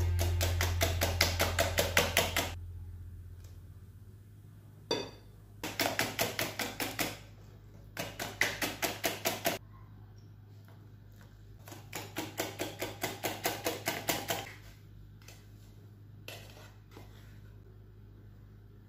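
Wire whisk beating egg batter in a glass bowl: rapid rhythmic clicking of the wires against the glass, in four bursts of one to three seconds each with short pauses between.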